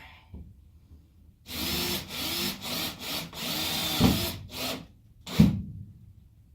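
Power drill driving self-drilling Teks screws, the motor's pitch rising and dipping over several short runs for about three and a half seconds. A single sharp knock follows near the end.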